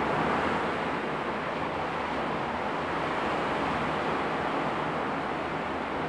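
Steady, even wash of ocean surf.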